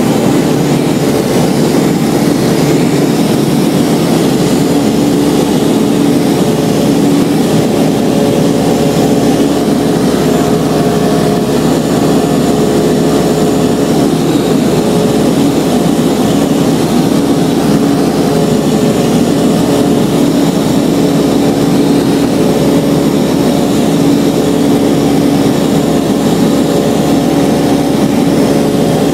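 Tecnam P92 ultralight's piston engine and propeller droning steadily in flight, heard on board the aircraft, with no change in pitch or power.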